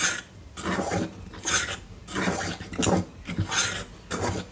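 A fork stirring seasoned flour in a glass bowl: a series of scraping, rasping strokes, a little more than one a second.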